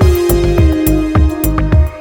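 Electronic background music with a steady, punchy beat and a held synth note that slides down in pitch about halfway through.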